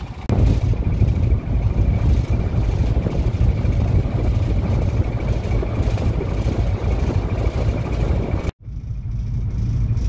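Boat engine running steadily under way, with wind on the microphone adding a heavy, uneven rumble. The sound drops out for an instant about eight and a half seconds in.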